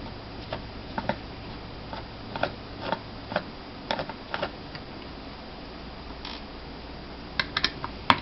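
Small Phillips screwdriver loosening the tiny screws of a laptop hard drive's metal case: scattered light clicks and ticks at an uneven pace, over a faint low hum.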